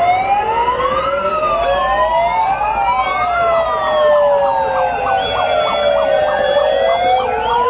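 Emergency-vehicle sirens, at least two at once, wailing in overlapping slow rises and falls of pitch, with a quick pulsing pattern for a couple of seconds near the middle.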